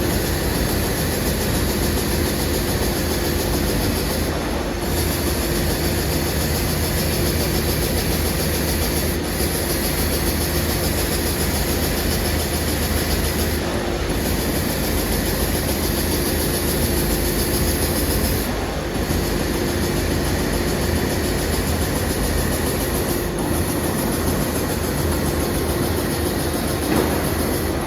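Amada EMZ 3510 NT CNC turret punch press running. It makes a steady mechanical noise with a low hum, and the cycle repeats about every four and a half seconds.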